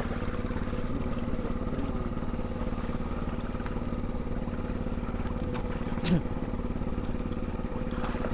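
Small fishing boat's engine running steadily, with a short knock about six seconds in.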